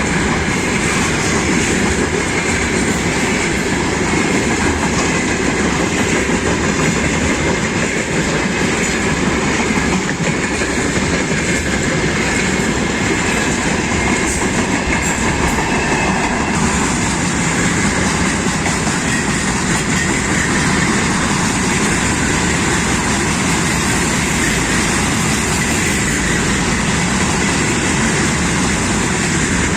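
Freight train wagons rolling past, their wheels clattering over the rail joints over a steady, loud rumble.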